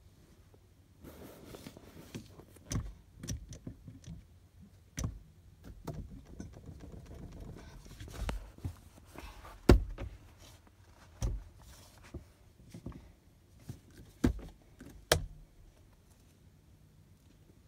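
A phone being handled inside a car cabin: irregular knocks, thumps and rubbing against the dashboard, about a dozen sharp knocks over a low rumble, the loudest about ten seconds in.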